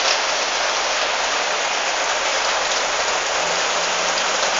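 Rain falling steadily, a dense even hiss of rain on the street and roofs.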